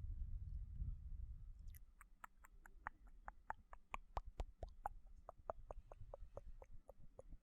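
Close-miked ASMR mouth sounds: a rapid run of small wet tongue and lip clicks, about four or five a second, starting after a low rumble in the first second or so.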